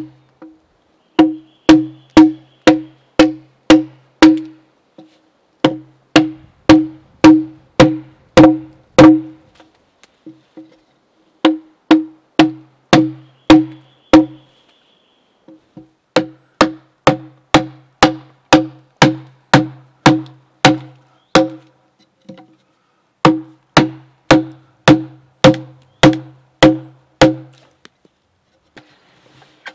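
Mallet blows on a wood chisel driven into a log, chopping out a mortise. Sharp, ringing knocks come at about two a second in runs of several seconds, with short pauses between runs.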